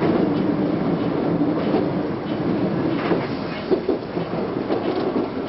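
Tokyu 8090-series electric train running on the track, heard from inside the car: steady running noise with a few wheel clacks over rail joints partway through.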